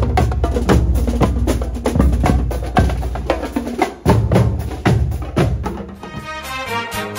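Marching band's bass drums and snare drums playing a fast, steady street-parade beat with heavy low thumps. About six seconds in the drumming fades out and a tuneful outro piece of music takes over.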